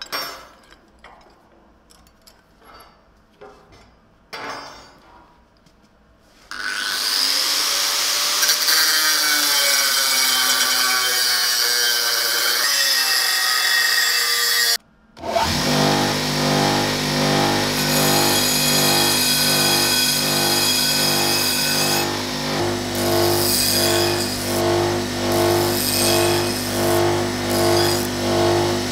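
A few metal knocks as a steel piece is handled in a bench vise, then from about six seconds an angle grinder runs against the steel, its pitch shifting under load. After a short break near the middle, a belt grinder runs with a steady hum while the steel is held to the belt, the sound swelling and dipping about once a second toward the end.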